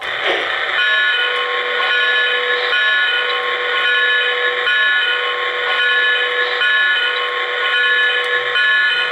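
Electronic steam-whistle sound from an O-gauge model steam locomotive's onboard sound system: a chord of several steady tones held long, with brief breaks, over a steady hiss.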